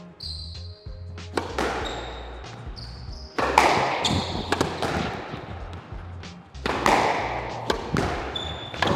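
Squash rally: the ball cracking off rackets and thudding against the court walls at irregular intervals, each hit ringing in the enclosed court, over background music with a steady bass.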